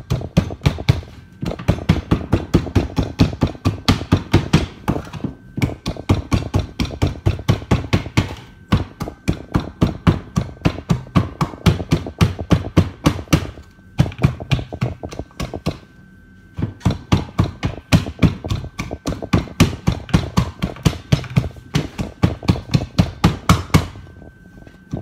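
A knife's wooden handle pounding raw potato pieces in a small metal cup, crushing them toward a juice. Sharp knocks come at about five a second in runs of a few seconds, with brief pauses between runs.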